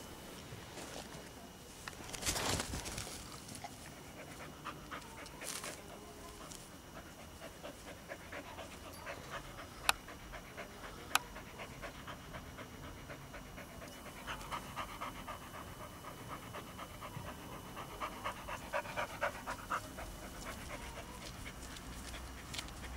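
Dog panting in quick, even breaths, louder in the second half, with two sharp clicks about a second apart near the middle.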